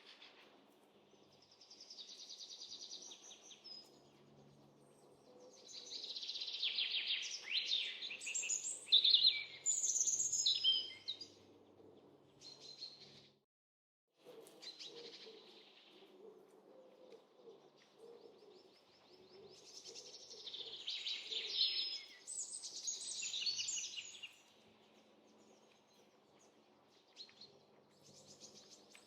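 Songbirds chirping and singing in several overlapping bouts of quick, high notes, busiest in the middle and again toward the end, over a faint steady background noise. The sound drops out completely for about half a second near the middle.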